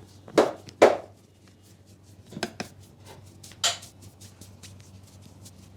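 Hands slapping and chopping on a person's head and shoulders in massage: two loud strikes in the first second, a quick pair about two and a half seconds in, and one more near four seconds, with lighter taps between.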